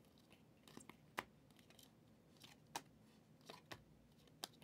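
Faint, irregular clicks and snaps of glossy Panini Prizm football cards being slid one by one from the front to the back of a hand-held stack, about eight in all.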